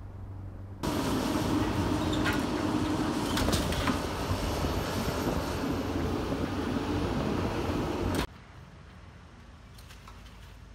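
Demolition excavator at work on a brick building: a steady heavy engine with several sharp crashes of breaking and falling rubble, starting suddenly about a second in and cutting off abruptly near the end.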